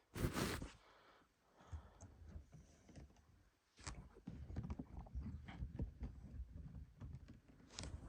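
Small plastic clicks and taps from handling a plastic action figure while fitting a tiny plastic hammer into its hand, quiet and irregular, growing busier about halfway through. A brief rustle comes at the start.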